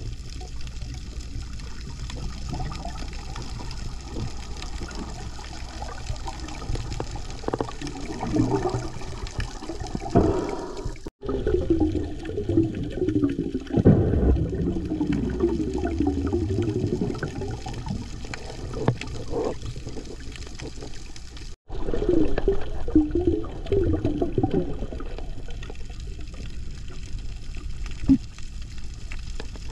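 Underwater sound recorded with the microphone below the surface: a steady low rumble of water with spells of bubbling from a freediver breathing out bubble rings, busiest around the middle and again about three quarters in. The sound cuts out abruptly twice.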